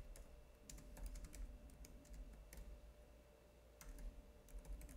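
Faint, irregular keystrokes on a computer keyboard as a line of text is typed.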